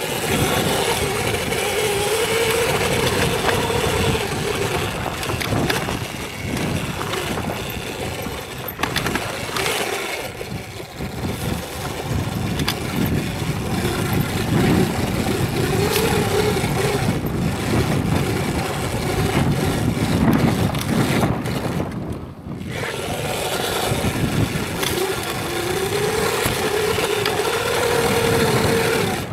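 Electric dirt bike ridden along a dirt trail: the motor's whine rises and falls with speed over a rushing noise of wind and tyres, with scattered knocks from the bike over the ground. The bike eases off briefly about three quarters of the way through.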